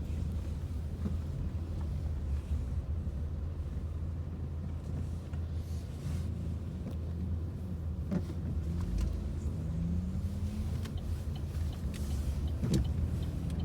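Car engine running with steady road rumble, heard from inside the vehicle; its pitch rises about ten seconds in as it speeds up.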